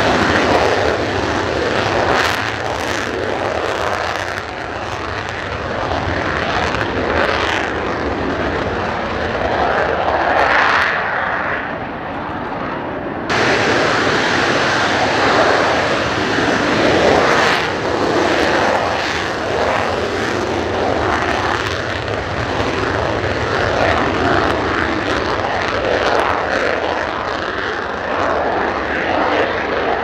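F-35A Lightning II's single F135 turbofan at takeoff power without afterburner, a loud continuous jet noise as the fighter rolls down the wet runway and lifts off. The sound jumps abruptly about 13 seconds in, where one takeoff run is spliced to the next.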